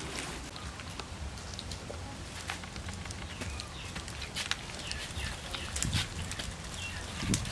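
Baby monkey eating soft fruit from a hand, with wet smacking and chewing clicks scattered throughout.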